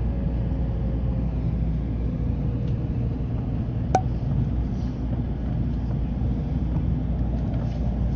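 Cabin running noise of an N700-series Shinkansen slowing into a station: a steady low rumble, with a faint whine falling slowly in pitch over the first few seconds and a single click about four seconds in.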